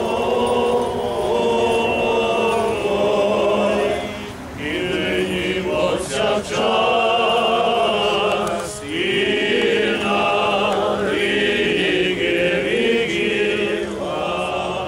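A group of voices singing a slow Byzantine-rite funeral chant in long sustained phrases, with short breaks for breath about four and nine seconds in.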